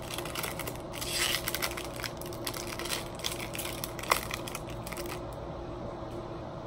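Foil wrapper of a Topps Chrome baseball card pack crinkling in irregular crackles as it is torn open and the cards are pulled out, loudest about a second in, with one sharp snap about four seconds in. A steady low hum runs underneath.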